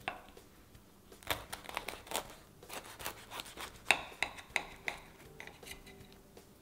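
Kitchen knife cutting through the crisp baked crust of a deep-dish pizza: a rapid run of sharp crackles and clicks, loudest about four seconds in, then dying away.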